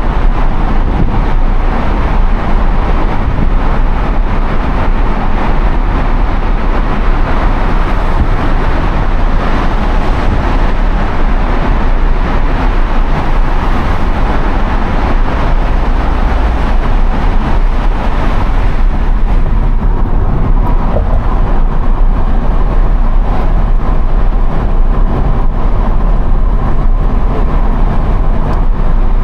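Steady road and tyre noise with a low rumble inside the cabin of a Subaru Impreza driving at road speed. About two-thirds of the way through, the hiss turns duller as the car leaves the tunnel.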